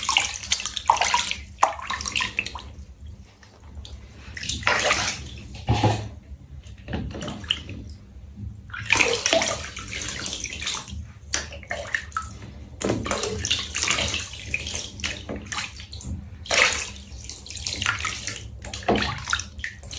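Water splashing and sloshing in a tub, in irregular bursts, with louder splashes several times.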